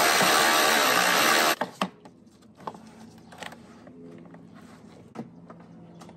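Milwaukee M12 cordless ratchet running, a steady motor whine that cuts off suddenly about a second and a half in. Then light clicks and handling noises.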